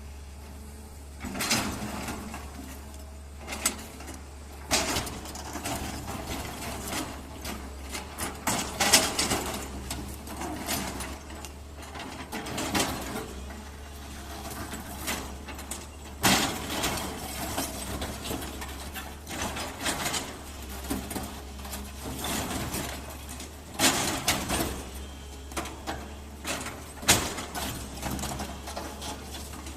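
Excavator at work: its engine drones steadily underneath while irregular scraping and knocking sounds come and go as the bucket cuts into the ground.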